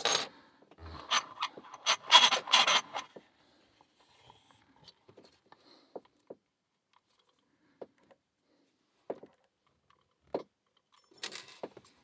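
Small metal padlock being closed and handled: a quick run of sharp metallic clicks and rattles in the first three seconds, then scattered faint ticks, and a short rattle near the end as the lock goes back into the vise.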